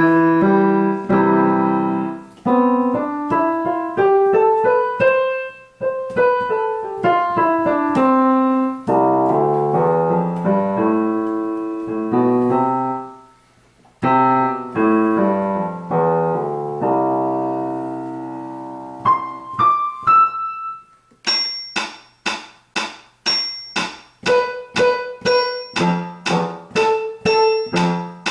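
Electronic keyboard instrument played through its amplifier: chords and runs moving up and down the keyboard, then, about two-thirds of the way in, a series of short repeated staccato notes. Its sound comes through cleanly again now that the crossed pair of wires on the jack board has been corrected.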